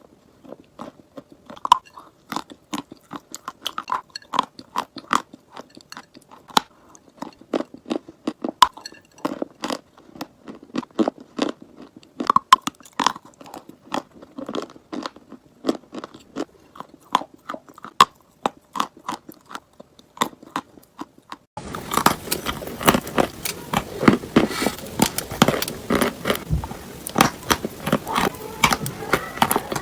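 Chalk being bitten and chewed close to the microphone: a continuous run of crisp crunches. About three-quarters of the way through, the background hiss jumps up suddenly and the crunching becomes denser and louder.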